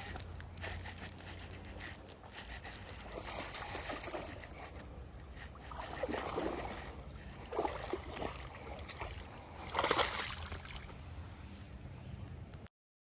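Shallow creek water splashing and trickling, with several louder splashes in the second half.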